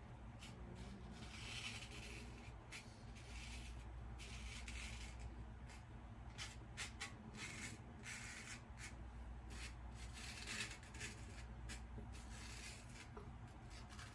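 Safety razor blade scraping stubble through lather in short, irregular strokes, a faint scratchy rasp repeated many times.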